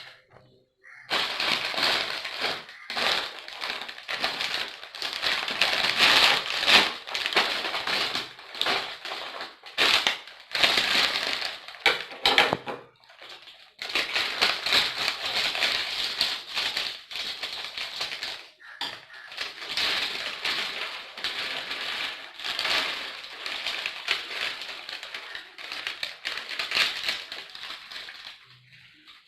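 Potato chips being bitten and chewed close to the microphone: dense, rapid crunching with a short pause about halfway through.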